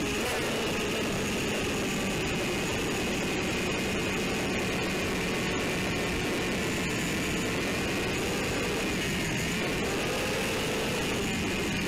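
A ZMR180 racing quadcopter's brushless motors and propellers whining steadily in flight, heard from close by, the pitch wavering slightly with throttle changes late on.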